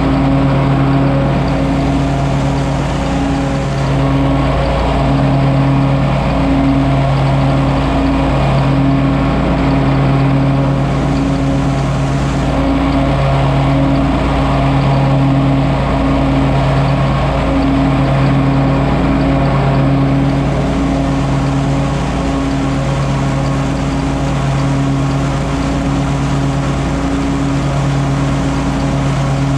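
John Deere 648R stand-on mower running steadily while mowing and mulching leaves, its engine note holding constant with small dips every second or two.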